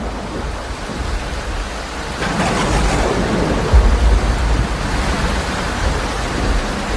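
Storm noise: steady heavy rain with a deep rumble that swells about two seconds in and is loudest from around four seconds in.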